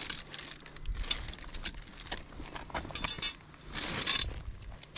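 Plastic bag crinkling and rustling in a gloved hand in short irregular bursts, with footsteps on concrete and a sharp click a little under two seconds in.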